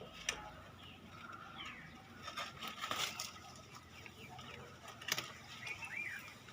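Leafy vines rustling and stems snapping as spiny gourds are picked by hand, with scattered clicks and a sharper snap about three seconds in and another about five seconds in. A few short chirps are heard, one near the start and one near the end.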